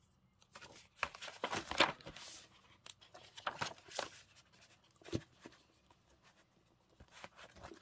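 Paper and plastic rustling with light taps as a hardback book, its jacket and its plastic sleeve are handled, in scattered short bursts that ease off for a while late on.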